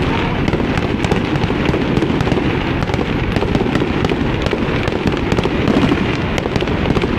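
Aerial fireworks display: many shells bursting in rapid, overlapping succession, a loud continuous barrage of bangs and crackle.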